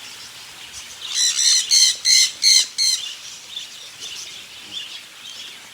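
A bird squawking: a quick run of about five harsh, high calls between one and three seconds in, followed by fainter chirps.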